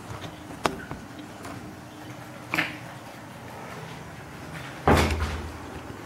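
A sharp click, a short knock and then a louder thump with a low rumble about five seconds in, over a faint steady hum.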